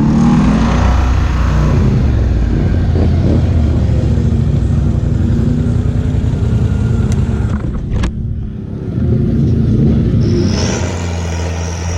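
ATV engines running under way, a loud steady low rumble that rises and falls with the throttle. A single sharp knock or break comes about eight seconds in, and a high steady whine joins near the end.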